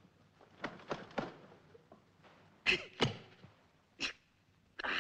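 A few faint clicks, then several short breathy vocal sounds from a man, like sharp breaths or sighs: a pair about three seconds in, another a second later, and one more near the end.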